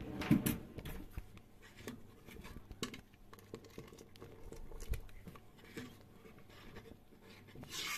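Utensils clattering in a cutlery drawer at the start as a ladle is taken out, then lentil soup ladled up and poured back into a steel pot: soft pattering of the thick soup and light clicks of the ladle against the pot.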